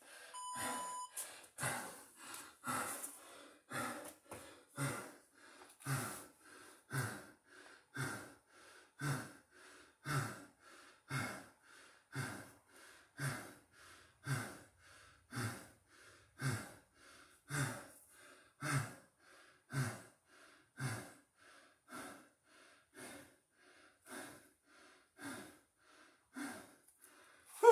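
A man breathing hard after a burpee session, quick deep breaths in and out about once a second, as he catches his breath. A short electronic beep sounds about a second in.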